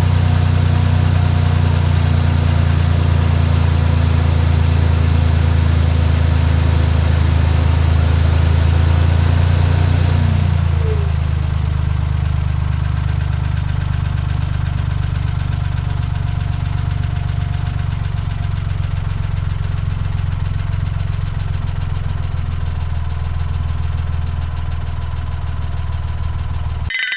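Suzuki Every Wagon's 660 cc three-cylinder engine idling, running on oil treated with Bell Hammer Light additive to quiet an abnormal engine noise. About ten seconds in, the idle steps down to a lower, steady speed and runs on until it cuts off near the end.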